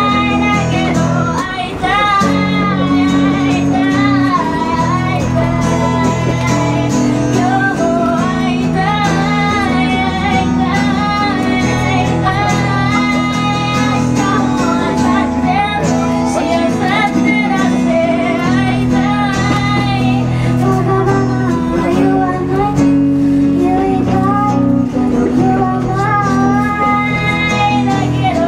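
A woman singing a song while strumming chords on an acoustic guitar.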